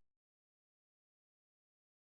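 Digital silence: the music has stopped and nothing is heard.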